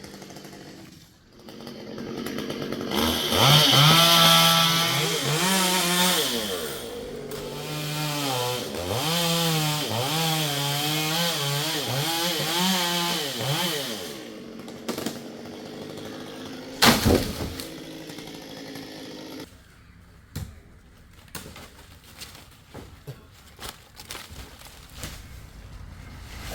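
Two-stroke chainsaw revving up and down over and over as it cuts into wood, then settling lower and cutting off about three-quarters of the way through. A single sharp crack comes shortly before it stops.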